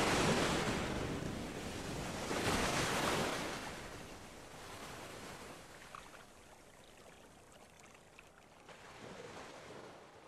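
Gentle waves washing in with some wind, two louder surges near the start, then fading down.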